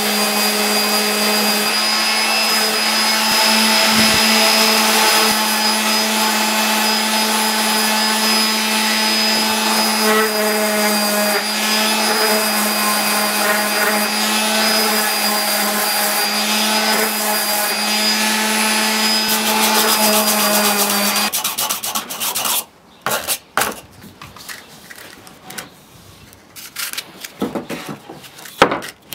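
Electric random orbital sander running steadily with a hum, its pad sanding oak, switched off about twenty seconds in. Then sandpaper wrapped around a dowel is rubbed by hand over the oak in short, uneven strokes.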